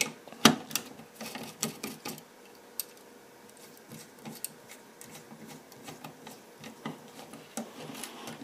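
Screwdriver turning the screw in the terminal block of an LRS-100-24 power supply, clamping a wire: small metal clicks and scraping, with two sharper clicks in the first second and lighter ticks after.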